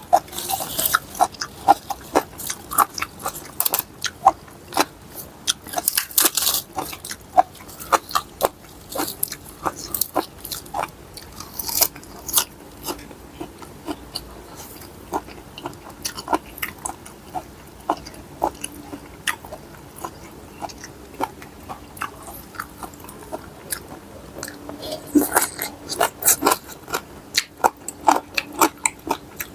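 A person chewing crunchy mouthfuls of mixed-seafood papaya salad close to the microphone: irregular crisp crunches and mouth clicks, busiest at the start and again near the end.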